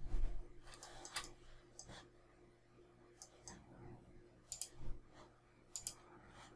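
Computer mouse clicks, scattered single and double clicks over a faint steady hum, with a low thump at the start.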